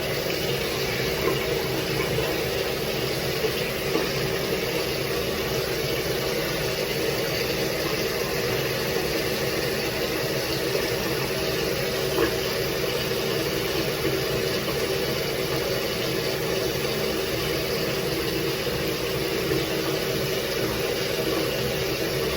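Water running steadily from a tap into a sink, without a break.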